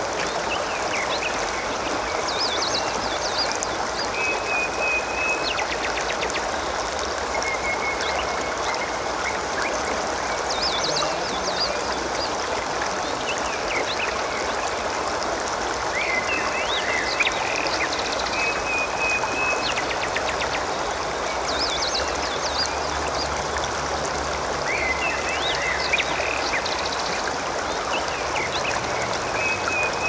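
Water running and gurgling steadily, like a small stream. Over it, a bird gives a short call every few seconds, a quick trill and a flat chirring note.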